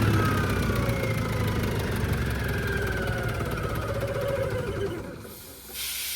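Towed air compressor's engine being throttled down, its pitch falling steadily until it fades out about five seconds in. A steady hiss starts just before the end.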